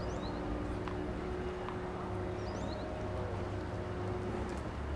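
Outdoor tennis stadium ambience between points: a steady low hum and background murmur, with faint short high chirps about a quarter second in and again after about two and a half seconds.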